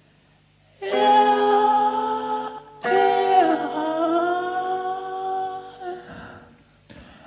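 Music: a faint steady low drone, joined about a second in by long held melodic notes in two phrases, the second bending in pitch before fading out near the end.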